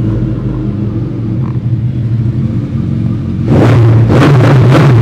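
Superbike fitted with a Scorpion aftermarket exhaust idling, then revved hard about three and a half seconds in, the exhaust turning very loud.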